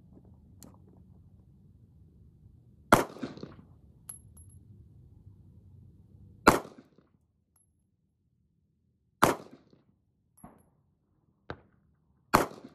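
Sig Sauer P938 Legion 9mm pistol fired four times in slow single shots about three seconds apart, each sharp report trailing off briefly. A few fainter sharp clicks fall between the shots.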